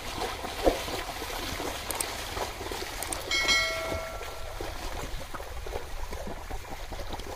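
Muddy water sloshing and splashing as a pair of bullocks drags a wooden leveling board through a flooded paddy field, with a sharper splash a little under a second in. A short ringing chime sounds briefly around the middle.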